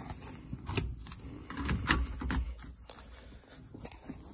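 Handling noise from a handheld phone being moved about: rustling with a few light clicks and knocks, the sharpest about two seconds in.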